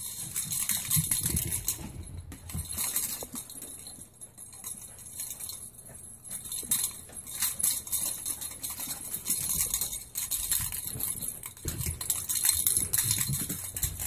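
A small wet dog scrambling and running about on carpet and couch after a bath: fast, irregular patter and scuffling of paws with quick clicks and rustles.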